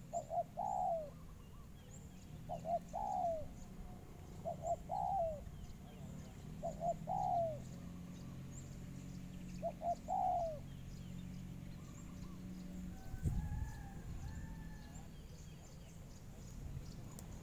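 Spotted dove cooing: five phrases, each two short coos followed by a longer falling note, repeated every two to three seconds and stopping about ten seconds in. A steady low hum runs underneath, and a single thump comes about thirteen seconds in.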